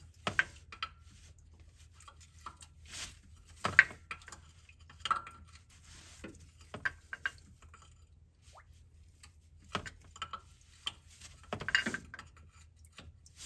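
Irregular metallic clinks and taps of a 21 mm open-end wrench on the sensor in the oil filter housing, as it is fitted, repositioned and turned to break the sensor loose.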